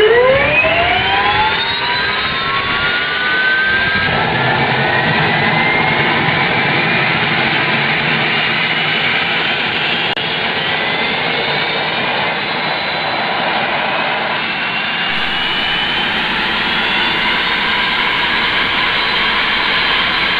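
Rear-mounted jet engine of a small business jet spooling up: a whine that climbs steeply in pitch over the first couple of seconds, then keeps rising slowly over a steady roar of jet noise as the engine settles into running.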